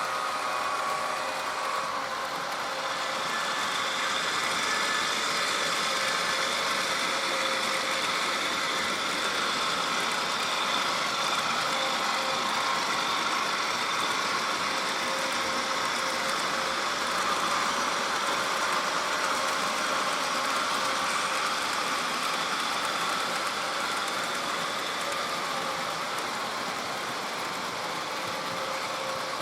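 Sound-equipped HO-scale GE ES44AC model playing its ESU LokSound diesel prime mover sound through the model's small speaker, running steadily and growing louder about three seconds in.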